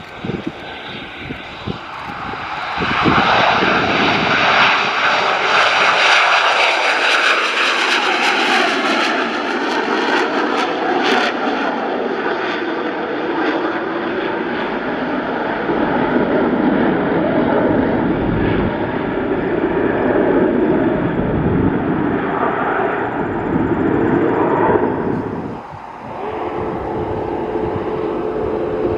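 Aircraft engine noise from an arriving airplane. It builds about three seconds in and stays loud and steady, dips briefly near the end, then returns with a steady hum.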